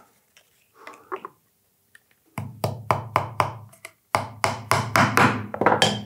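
Quick light taps and knocks on wood, several a second, in two runs of about a second and a half each, with a low hum under them.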